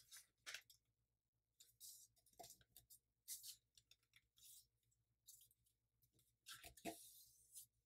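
Faint rustling and creasing of a sheet of letter-size paper as fingers fold it and press the fold flat, in short scattered bursts with the loudest ones near the end.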